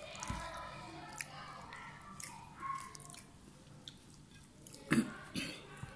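A person chewing food close to the microphone, with soft scattered clicks and two louder short sounds about five seconds in.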